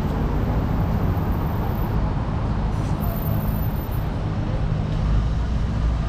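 Steady city street traffic noise, vehicles running past with a strong low rumble.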